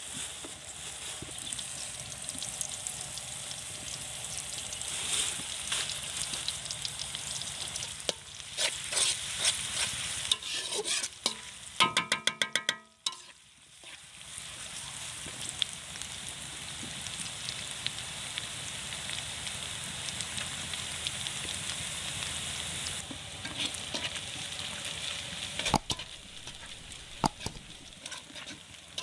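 Food frying in hot oil in a pan, a steady sizzle with the scrape and clatter of a spatula stirring it. About halfway through a brief, loud, pulsing pitched sound cuts in, then the sizzle drops out for a moment before it resumes.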